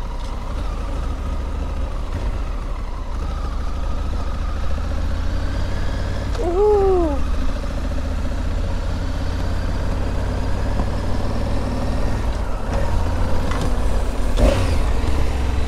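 Honda Africa Twin motorcycle running at low speed in city traffic: a steady low rumble of engine and wind, slowly growing louder. About six and a half seconds in there is a short tone that rises and falls, and a brief knock near the end.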